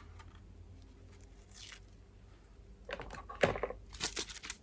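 Faint handling noise of small tool parts: a few light clicks and rustles about three seconds in.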